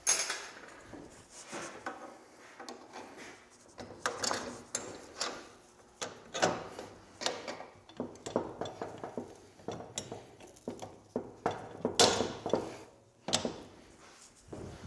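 Steel dethatcher parts clinking and knocking as long bolts are pushed through spring-steel tines and onto a tine bar. The knocks come irregularly, a few of them ringing briefly.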